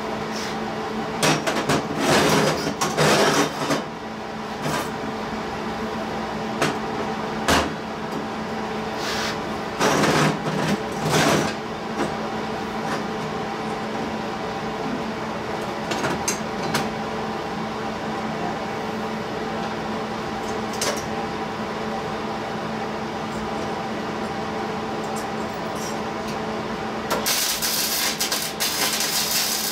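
Square steel tubing clattering and clanking on a steel welding table as the pieces are laid out, twice in brief bursts, over a steady shop hum with a few fixed tones. Near the end a MIG welder's arc strikes and runs with a continuous crackling sizzle.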